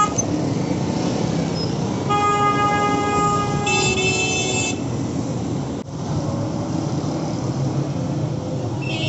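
Busy street traffic with vehicle horns honking: a long horn blast starting about two seconds in, joined near four seconds by a second, higher-pitched horn.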